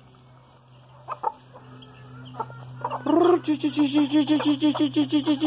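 Chickens clucking: a few soft clucks, then about three seconds in one bird breaks into a loud, fast run of clucks, about five a second, that keeps going.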